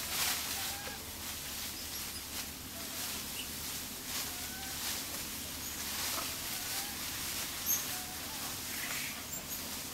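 Outdoor woodland ambience: a steady hiss with scattered faint short chirping calls, each briefly rising or falling in pitch.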